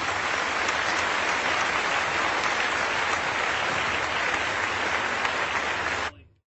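Applause from a crowd of people, steady and fairly loud, cutting off abruptly near the end.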